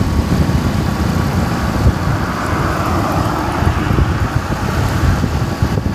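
Wind buffeting the microphone and road noise from a moving motorbike, a dense, uneven rumble, with a hiss that swells and fades around the middle.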